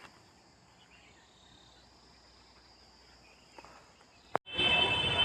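Faint outdoor ambience with a steady, high, thin insect drone. About four seconds in, a sharp click is followed by a sudden jump to much louder, busy outdoor noise.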